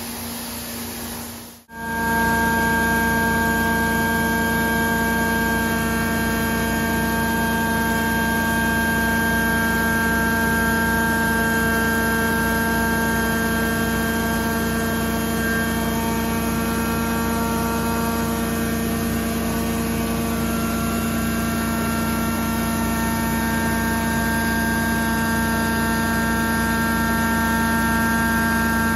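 Prochem Legend truckmount carpet-cleaning unit running: its Honda GX690 V-twin engine and vacuum blower make a loud, steady hum with several steady higher tones over it. The sound comes in abruptly about two seconds in, after a brief quieter stretch.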